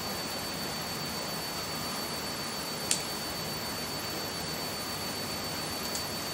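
Steady background hiss with a faint, constant high-pitched whine, broken once about three seconds in by a single short, sharp budgie chirp and a fainter one near the end.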